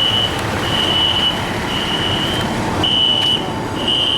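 Building fire alarm sounding: a high-pitched beep repeating about once a second, each beep a little over half a second long.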